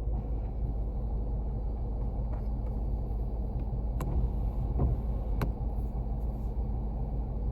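Jeep engine idling steadily, a low rumble. Two sharp clicks or knocks come about four and five and a half seconds in.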